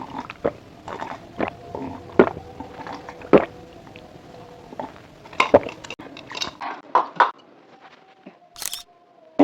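Close-up chewing and biting of crunchy fried food, with irregular sharp crunches every half second or so.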